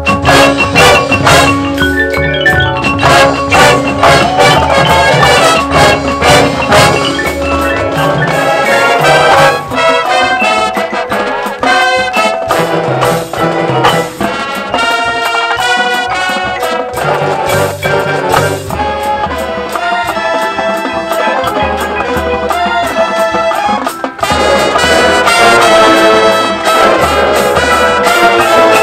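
High school marching band playing its field show: brass with front-ensemble marimbas and other mallet percussion. The low brass and bass drop away for several seconds in the middle, leaving lighter mallet and upper-brass lines, then come back in and the full band swells near the end.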